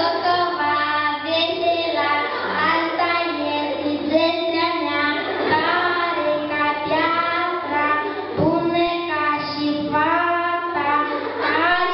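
A child singing a slow song into a microphone, holding long notes one after another.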